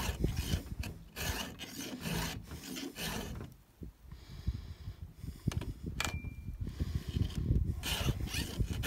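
Chainsaw file in a filing guide rasping across the cutter teeth of a saw chain in repeated quick strokes. The filing pauses for about two seconds midway, with one sharp click, and resumes near the end.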